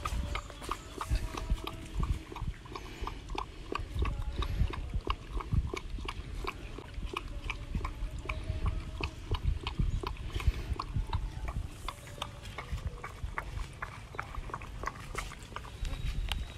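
A puppy and a young monkey eating from bowls: a steady run of small sharp eating clicks, several a second.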